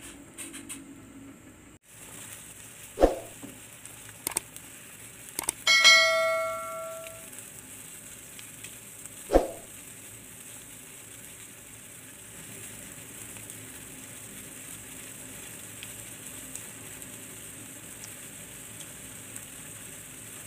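Metal ladle knocking a few times against a stainless steel pot over the steady bubbling of boiling chicken broth. One strike about six seconds in rings on like a small bell for about a second.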